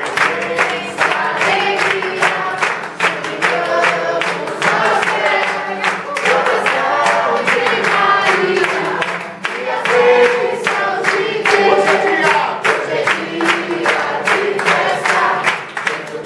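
A group of people singing together and clapping their hands in a steady rhythm.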